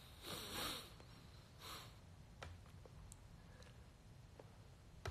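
A man breathing out audibly through his nose, then a second shorter breath, with a few faint clicks. Otherwise near silence in a small room.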